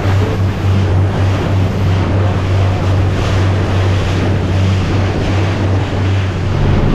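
Boat engine running steadily at speed, a constant low hum under the rush of water and wind buffeting the microphone.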